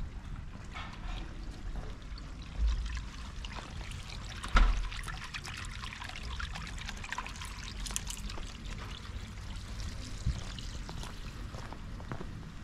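Steady trickling, splashing water, with two short low thumps about three and five seconds in, the second louder.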